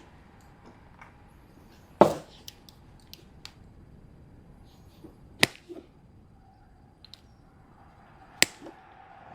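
A few sharp, short clicks and taps from small hand tools and wiring being handled during wiring-harness repair. The loudest comes about two seconds in, with two more near the middle and near the end and fainter ticks in between, over a quiet background.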